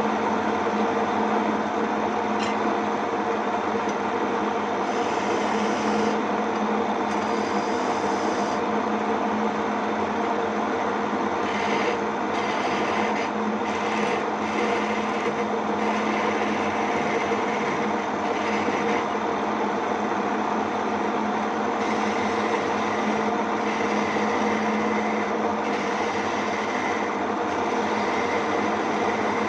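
Homemade mini wood lathe motor running steadily while a hand tool scrapes against the spinning wooden blank, the scraping rising and easing as the cut goes on.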